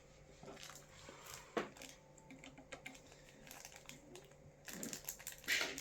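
Scattered light clicks and taps of a motherboard being set back into a PC case over its standoffs, with a louder scraping rub near the end.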